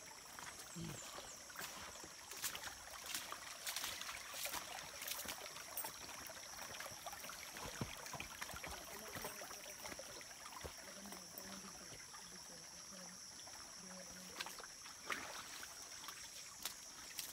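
Shallow stream trickling over stones, with footsteps on a wet, stony path and a steady high-pitched whine behind.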